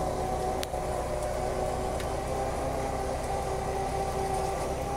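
Off-road 4x4 engine running at a steady idle, with a faint sharp click about half a second in and another about two seconds in.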